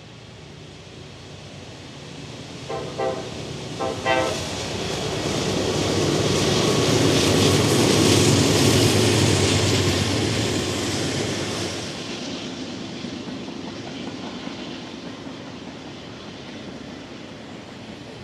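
Diesel locomotive sounding two short horn blasts about three and four seconds in. The train then passes close by, its engines and wheels growing loud in the middle and fading away near the end.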